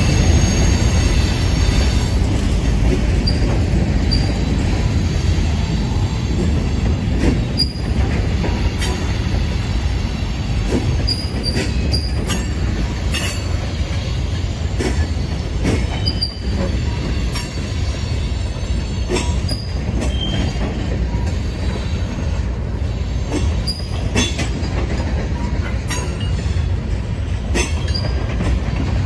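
Freight train cars, covered hoppers and tank cars, rolling past: a steady low rumble of steel wheels on rail, irregular clicks and clanks over the rail joints, and brief high-pitched wheel squeals.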